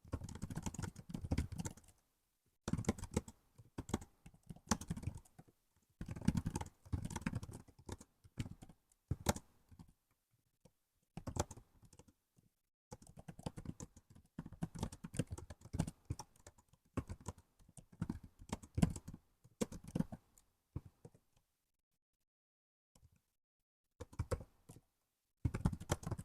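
Laptop keyboard typing in bursts of rapid key clicks, a second or two at a time with short pauses between, and a longer pause of about three seconds near the end.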